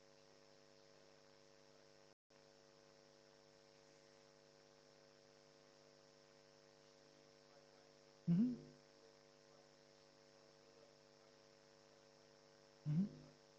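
Steady electrical mains hum, a stack of even tones, that cuts out for a moment about two seconds in. Two short voice sounds break through it, one about eight seconds in and one near the end.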